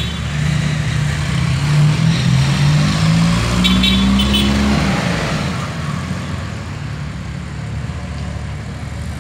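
Trike and motorcycle engines pulling away in a group, one engine's note climbing as it accelerates over the first few seconds, then settling into a fading rumble as they ride off. A horn toots in a few short beeps about four seconds in.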